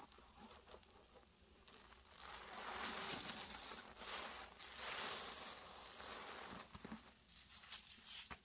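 A sponge squeezed and kneaded by gloved hands in a thick, foamy paste of Comet cleanser powder and liquid: wet squishing, loudest in two long squeezes about two and four and a half seconds in, with faint crackling of foam between.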